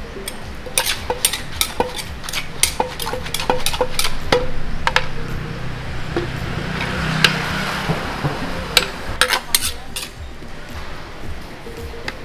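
Wooden pestle pounding green papaya salad in a large clay mortar, with a spoon tossing it: sharp knocks a couple of times a second, stopping near the end.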